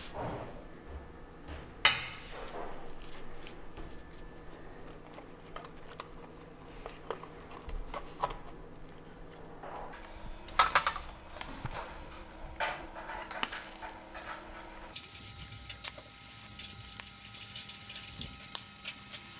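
Sheet-steel pieces clinking and knocking against a steel workbench as they are handled, with a sharp metal knock about two seconds in and a cluster of knocks near the middle. For the last few seconds a TIG welder runs with a steady hum and faint crackle, fusing the two chain-guard halves without filler rod.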